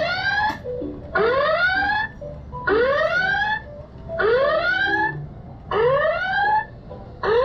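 Electronic arcade game machine sound: a loud rising 'whoop' tone that repeats evenly about every second and a half.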